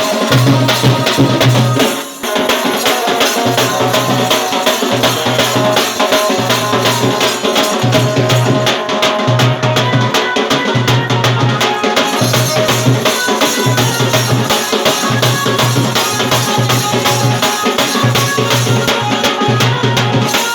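Dance music for a Sora village dance: drums beat a steady repeating rhythm under dense jangling, rattling percussion.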